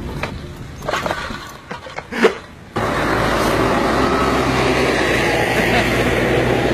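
Brief rustles and knocks from a backpack being handled, with a sharp knock a little after 2 s. Then the sound cuts abruptly to loud, steady street traffic noise as cars drive past.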